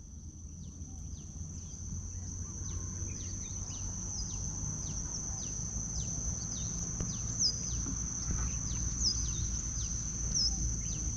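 Birds calling in a run of short falling chirps, about two a second, with a few louder hooked chirps in the second half. Beneath them runs a steady high-pitched insect drone and a low rumble.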